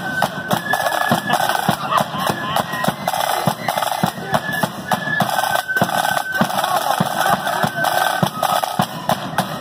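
Marching flute band playing a tune: snare drums rolling and beating with a bass drum under a high, stepping flute melody.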